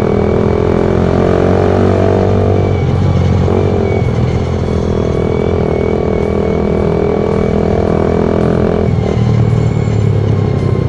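Suzuki Satria FU's 150 cc single-cylinder four-stroke engine running under way, its note shifting about three seconds in and again near nine seconds. The rider has just noticed a strange noise from the bike, of unknown cause.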